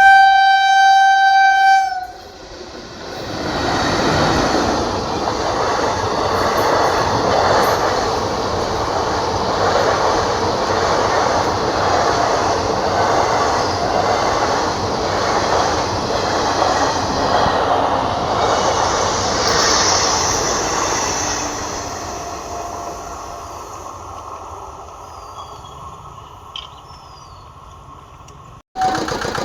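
Indian Railways EMU local train: one horn blast of about two seconds, then the train passing with a steady rush of wheel-on-rail noise for around twenty seconds, fading away near the end.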